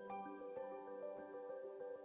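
Background music: a calm melody of held notes stepping several times a second over a low sustained note.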